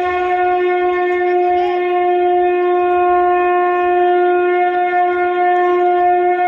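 One long, steady horn-like note from a blown wind instrument, held at a single pitch without a break.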